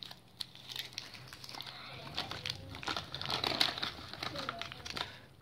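Crinkling of a paper bag as a hand rummages inside it, loudest about three seconds in.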